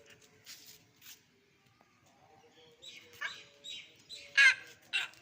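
A dog barking and yelping in a run of short, high-pitched calls that starts about three seconds in, the loudest just past the middle.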